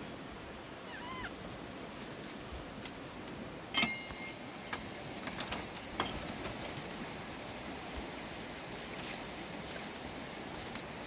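Baby monkey giving short, high squeaks, one about a second in and another with a sharp knock just before four seconds, over a steady outdoor hiss, with a few lighter clicks.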